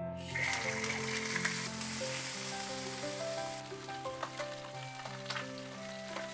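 Small whole fish sizzling as they fry in hot oil in a large iron wok, the sizzle starting sharply as the fish go in, loudest for the first couple of seconds and then easing. Background music plays underneath.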